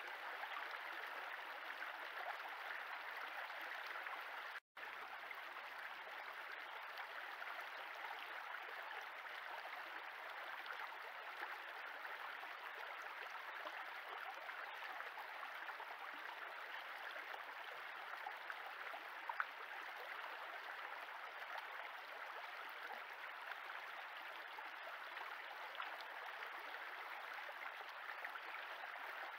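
Shallow woodland stream flowing over a stony bed: a steady rushing of water picked up by a trail camera's microphone. A short gap of silence breaks it just under five seconds in.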